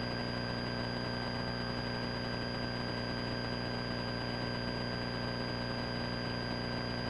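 Steady drone of a light airplane's engine and propeller in level flight, with thin steady high tones running over it.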